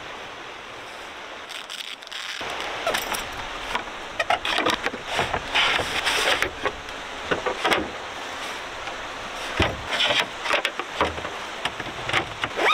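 Plywood panels of a slotted flat-pack shelf knocking and clacking as the pieces are handled and fitted together, over a steady rushing hiss.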